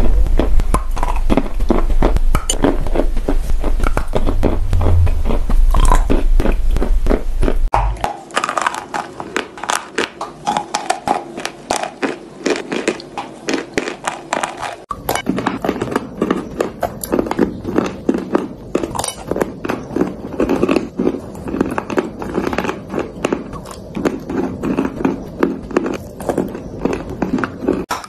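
Close-miked biting and chewing of lumps of clay: many sharp, dry crunches and crackles in quick irregular succession as pieces snap off and are ground in the mouth. A low hum runs under the first part and stops at a cut about eight seconds in.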